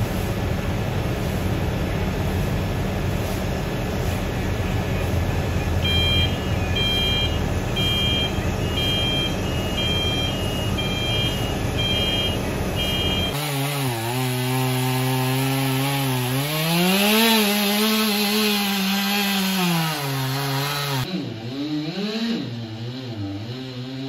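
A crane's engine running steadily, with an alarm beeping about once a second from about six seconds in. About halfway through, a chainsaw takes over, revving up as it cuts into the trunk, holding high, then easing off, with a brief dip in revs near the end.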